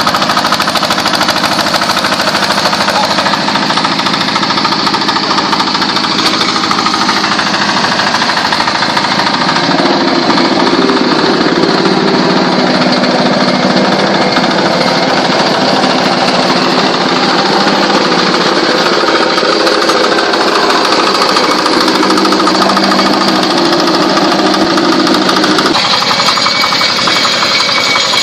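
Diesel engine of a QT40-3A movable egg-laying block machine running steadily while the machine moulds concrete zigzag paver blocks. A deeper hum joins in for two stretches, from about ten to twenty seconds in and again from about twenty-two to twenty-six.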